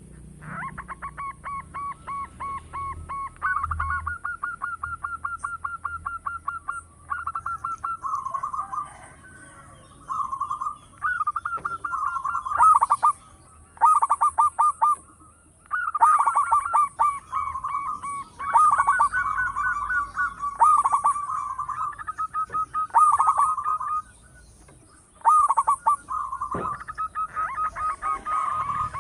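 Zebra doves (perkutut) calling: rapid runs of short, staccato cooing notes in bouts of a few seconds, broken by brief pauses.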